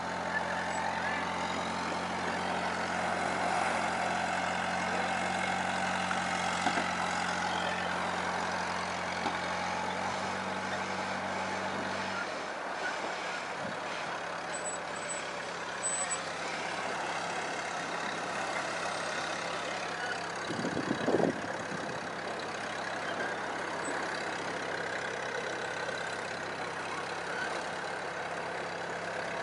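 Engine of a small tracked loader working on a beach, a steady low hum that drops off about twelve seconds in. A short, louder burst comes about two-thirds of the way through.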